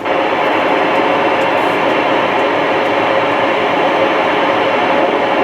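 Steady rushing static from a CB radio's speaker while it receives, an even hiss held to the narrow band of a radio speaker, with no clear voice in it. It starts abruptly and cuts off near the end as a transmission ends.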